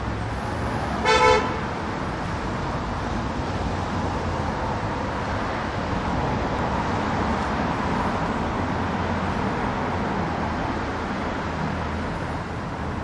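Steady city traffic noise, with one short car horn toot about a second in.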